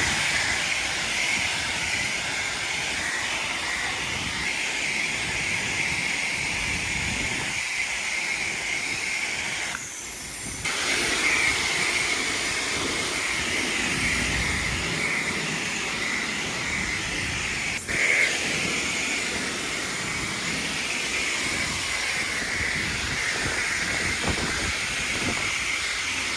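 Car-wash pressure wand spraying water onto a car in a steady hiss, with two short breaks partway through.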